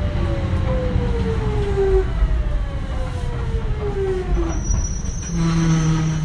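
Kintetsu 1420 series train's Mitsubishi GTO-VVVF inverter and traction motors whining over the steady rumble of the wheels. The whine falls in pitch in two long sweeps as the train brakes into a station. Near the end it settles into a steady low hum as the train nears a stop.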